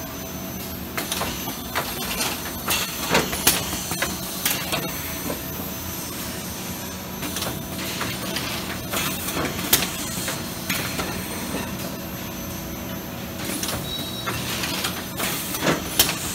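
Sencorp CeraPak packaging machine running: a steady machine hum with irregular metallic clanks and short pneumatic hisses.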